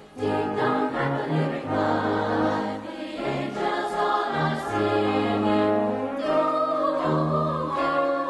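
A choir singing in sustained harmony, resuming after a brief pause between phrases at the very start.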